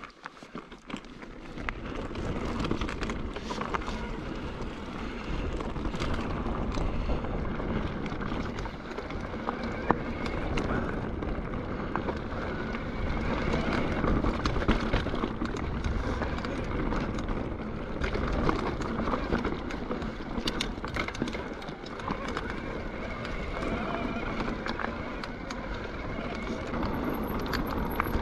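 Mountain bike riding down a rough forest trail: tyres rolling over gravel with a steady low rumble, and the bike clicking and rattling over bumps all the way.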